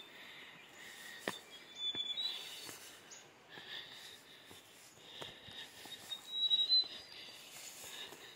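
Birds calling, with short, thin high whistles about two seconds in and again, louder, around six and a half seconds. Scattered faint scuffs and taps of footsteps on stone steps.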